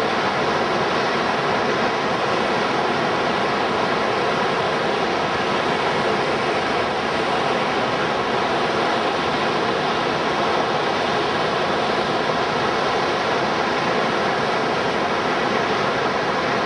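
River rapids and a standing wave rushing, a steady whitewater roar with no change in level.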